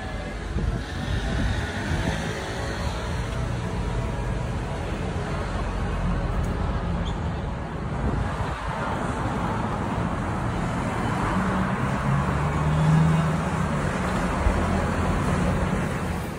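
Street traffic: a steady wash of passing cars, with one vehicle's engine humming louder as it goes by about three-quarters of the way through.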